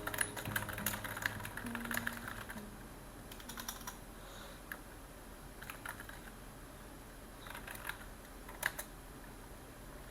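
Typing on a computer keyboard: a quick run of keystrokes for the first couple of seconds, then slowing to scattered single key presses, with two louder clicks near the end.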